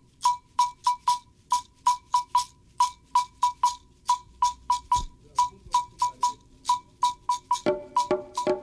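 A run of sharp clicks, each with a short ring, in an uneven rhythm of about three a second. Deeper pitched ringing joins them near the end.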